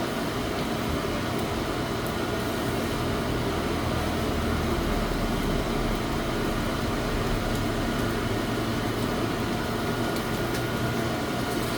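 A steady machine hum with a low rumble, like a fan or motor running without change.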